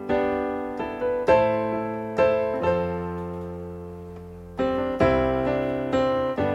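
Electronic keyboard on a piano voice playing slow, open-voiced chords spread across the keys. Each chord is struck and left to ring and fade, with a long held chord in the middle.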